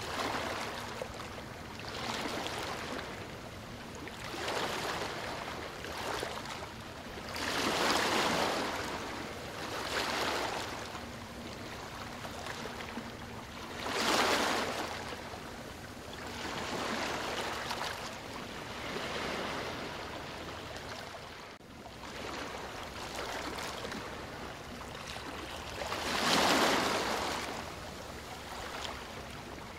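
Sea water lapping and sloshing at the surface in repeated swells every couple of seconds, a few of them louder splashes.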